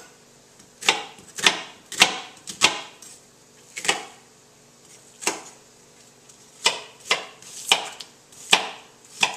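Kitchen knife chopping an onion on a cutting board: about a dozen separate, unevenly spaced knocks of the blade on the board.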